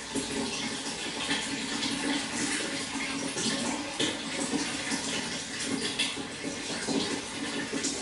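Running water flowing and splashing steadily, with a constant, fluttering rush.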